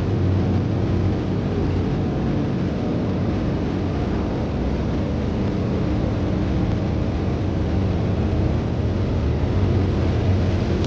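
A vehicle running: a steady low rumble with a hiss above it.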